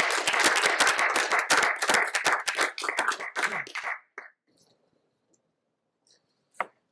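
Audience applauding in a lecture room, the clapping dying away about four seconds in, then a single knock near the end.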